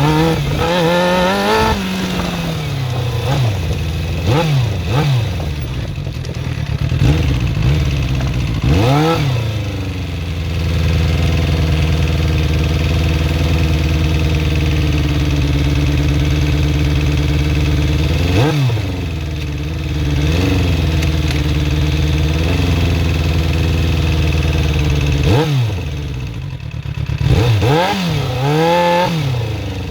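Suzuki GSX-R400R inline-four engine being revved: repeated short throttle blips that rise and fall, with two long stretches held at a steady raised speed in the middle. The engine has a ticking that the owner calls horrible and suspects is the valve shims or the timing chain.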